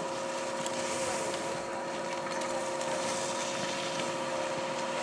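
Surface ski lift machinery running with a steady hum of several fixed tones, with a few faint clicks.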